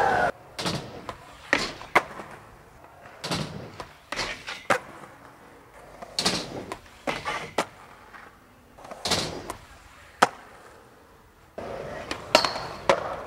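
Skateboard being ridden and used for tricks: wheels rolling, broken by a series of sharp clacks of the board popping and landing. There are about a dozen separate hits, roughly a second apart.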